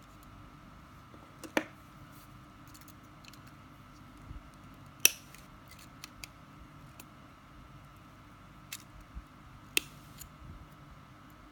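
Pliers working stainless steel wire: a few sharp metallic clicks at irregular spacing as the jaws grip and bend the wire, the loudest about five seconds in.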